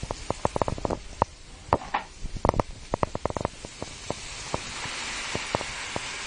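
A quick run of sharp clicks and knocks from kitchenware being handled. From about four seconds in comes a steady sizzling hiss as water hits the hot frying pan of diced onions.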